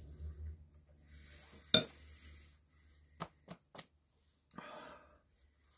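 A person burping after eating, with a rustle of clothing and one sharp click, the loudest sound, nearly two seconds in, then three short taps.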